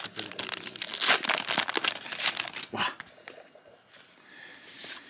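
Wrapper of a 1989-90 NBA Hoops card pack being torn open and crinkled in the hands. There is dense crackling for about three seconds, then fainter rustling.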